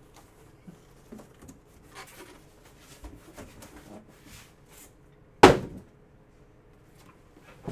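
A single loud thump about five seconds in, amid faint rustling and tapping from cardboard boxes being handled on a table.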